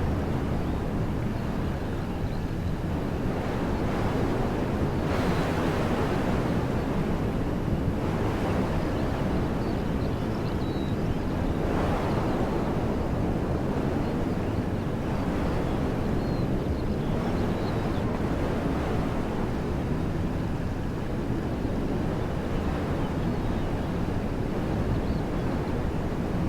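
Wind blowing through woodland trees: a steady rushing with a low rumble of wind on the microphone. It swells in gusts about five and twelve seconds in.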